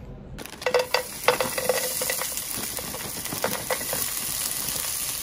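Seasoned diced potatoes poured into a hot oiled frying pan, sizzling steadily, with scattered light clicks as pieces land in the pan during the first couple of seconds and again briefly later.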